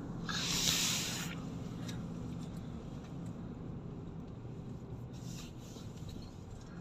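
Car cabin noise while driving slowly: a steady low engine and road hum, with a burst of hiss lasting about a second, starting just after the beginning.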